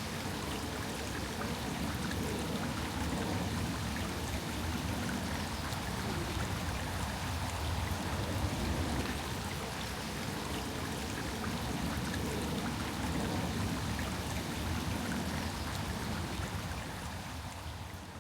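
Steady rushing of running water from a stream, easing off near the end.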